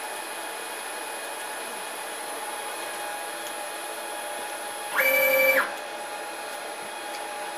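Z-axis stepper motor of a 6040 CNC router whining for about half a second, a little past the middle, as the head jogs up off the work; the pitch ramps up, holds, then ramps down as it stops. A steady machine hum runs underneath.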